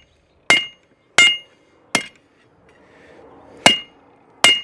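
Hand hammer striking a red-hot round steel bar on an anvil: five blows, each with a short bright ring, with a pause of over a second before the fourth. The end of the bar is being forged round.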